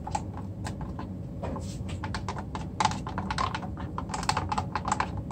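Mixing stick clicking and scraping against the inside of a plastic cup in quick, irregular strokes as green copper carbonate powder is stirred into part B of a liquid urethane casting resin.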